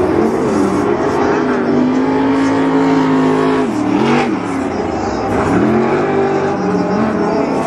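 Pro Lite short-course off-road race truck engines revving hard; the pitch drops sharply off the throttle about four seconds in, then climbs again as the trucks accelerate.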